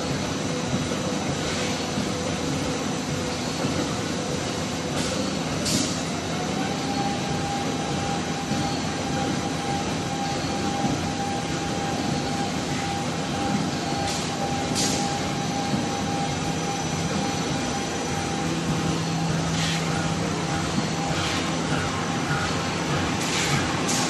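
Automatic facial tissue packing machine running: a steady mechanical din with a motor whine that rises in pitch about six seconds in and then holds, and short hisses every few seconds.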